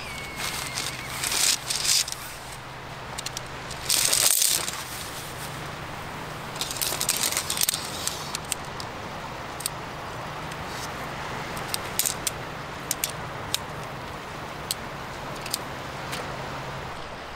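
Shock-corded tent poles being taken out of their bag and shaken out, their metal sections clicking and clinking as they snap together, over rustling of nylon tent fabric. There is a loud rustle about four seconds in, and the clicks come in a run in the second half.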